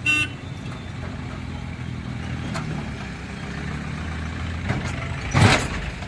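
Road traffic at a railway level crossing: vehicle engines running with a steady low hum, a short horn beep at the start, and a loud burst of noise about five seconds in as a pickup truck drives past close by over the rails.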